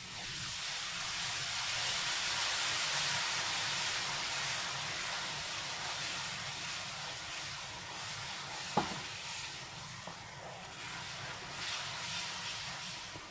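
Hot butter-and-flour mixture in a pan sizzling as date syrup is poured in and stirred with a wooden spoon. The sizzle swells over the first few seconds, then slowly dies down, with one sharp knock about nine seconds in.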